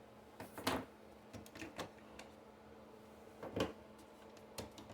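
Ink cartridges being unclipped and pulled out of a Canon MG5220 inkjet printer: a few faint, separate plastic clicks and knocks, the loudest about three and a half seconds in.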